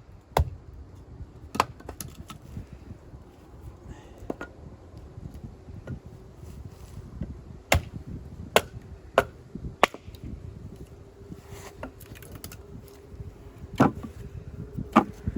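Wood being chopped with an axe: about ten sharp, irregularly spaced chops.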